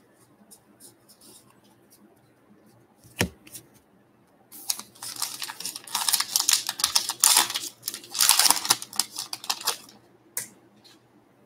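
Trading-card pack wrapper crinkling and rustling as a pack is torn open and the cards handled: faint light ticks, a sharp click a few seconds in, then several seconds of loud crinkling in two spells.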